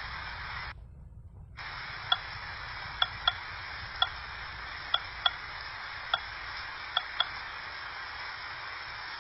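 Steady hiss over a low hum, which cuts out briefly about a second in, with nine short, sharp clicks spread over the rest, some of them in quick pairs.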